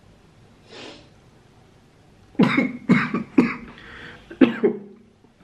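A man coughing in a fit of four coughs starting about two and a half seconds in, after a faint sniff about a second in. It is a reflex fit set off by a nasal swab.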